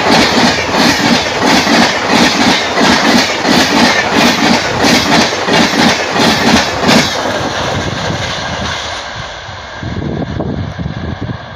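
Express train's passenger coaches passing close by at speed: an even clickety-clack of the wheels over the rail joints, about two beats a second. About seven seconds in the clatter stops as the last coach goes by, leaving a quieter steady rumble.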